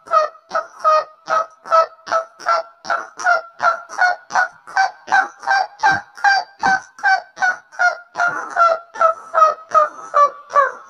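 A rhythmic string of short, nasal honking calls, about three a second, each at the same pitch, played as a cartoon's intro sound effect. The pitch lifts slightly in the middle and drops lower near the end.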